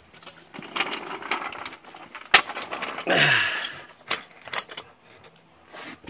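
Steel floor jack being rolled over concrete and set under the front of a car: metal rattles and clicks, a sharp clank about two seconds in, then a brief scraping rush.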